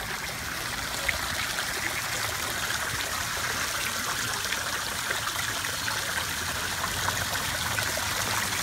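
Water splashing steadily from the spouting mask faces of a tiled wall fountain into its basin, growing slightly louder over the first couple of seconds.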